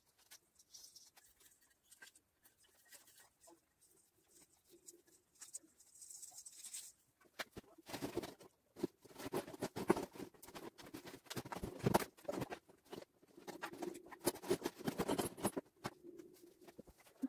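Rustling and clicking of Christmas decorations being handled and rummaged through close to the microphone, soft at first and busy from about halfway on.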